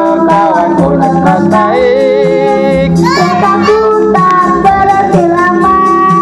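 Karaoke backing music of an Indonesian children's song playing loud through home stereo speakers, with children's voices singing the melody over a steady beat.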